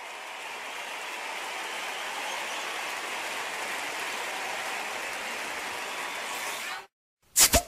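Intro sound effects: a steady rain-like hiss that cuts off abruptly near the end, then a short silence and a single loud, deep impact hit.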